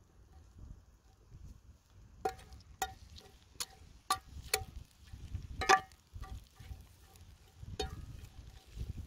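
Steel cleaver blade knocking and scraping against a cast-iron pan while diced bacon and onion are pushed around: about seven sharp metallic clicks, each with a brief ring, starting about two seconds in, the loudest past the middle. A low rumble runs underneath.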